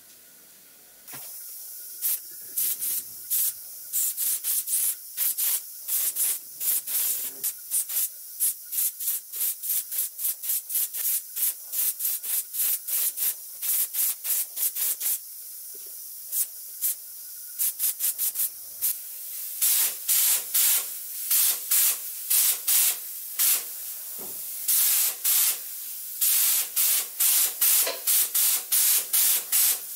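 Compressed-air paint spraying in many short hissing bursts, two or three a second, over a faint steady air hiss, as paint is laid on in quick trigger pulls. The bursts grow louder and longer from about twenty seconds in.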